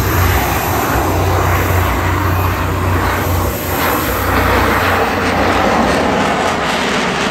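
Military jet aircraft flying over in formation: a loud, steady jet engine roar with a deep rumble underneath that eases after about five seconds.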